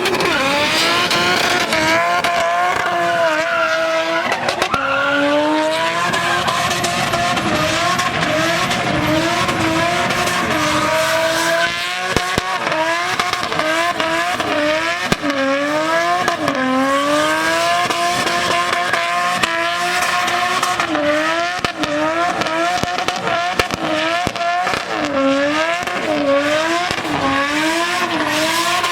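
RB25DET turbocharged straight-six engine held at high revs during a spinning burnout, its pitch rising and falling every second or two, with the rear tyres squealing under wheelspin.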